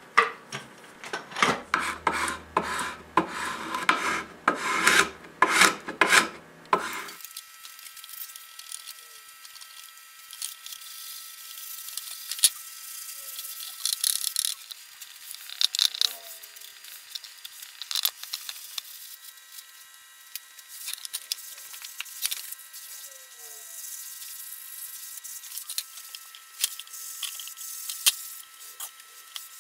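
A run of rasping hand-tool strokes along the edge of a wooden board held in a vise, the loudest part, lasting about seven seconds. After that come quieter scattered clicks, small knocks and brief squeaks as glue is spread on the board edges and clamps are fitted and tightened.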